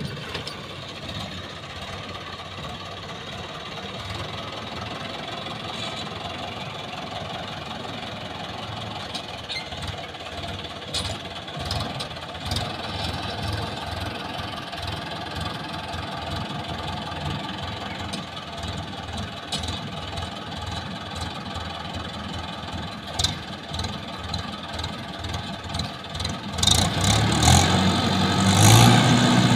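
Swaraj tractor's diesel engine running steadily under load, with a few short sharp knocks. Near the end the engine grows louder and deeper.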